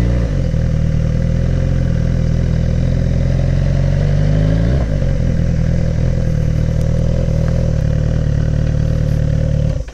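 Suzuki GSX-R1000 K7 motorcycle's inline-four engine running steadily, with a brief dip and rise in pitch about halfway through. The engine cuts off suddenly at the very end.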